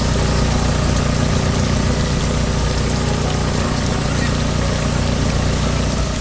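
Tractor engine running steadily at a constant pitch, under a continuous hiss, and stopping suddenly at the end.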